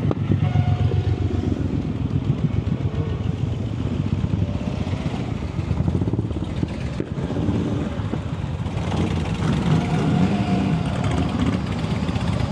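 Large truck's diesel engine running close by with a steady low rumble.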